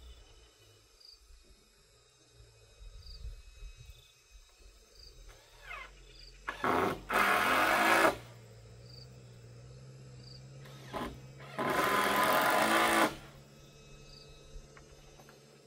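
Power drill driving screws into wooden roof boards: two runs of about a second and a half each, one midway through and one a few seconds later, each led by a short blip of the trigger.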